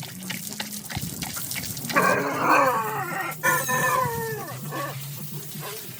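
A farm animal's long call, lasting about three seconds from about two seconds in and falling in pitch as it goes, over a steady low hum and scattered knocks.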